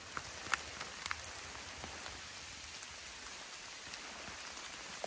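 Light rain falling on the forest canopy: a steady soft hiss with scattered drops ticking at irregular moments.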